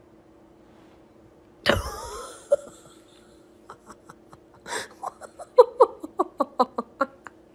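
A sudden loud burst about two seconds in, then a person laughing in short rapid bursts, about four a second, over the last few seconds.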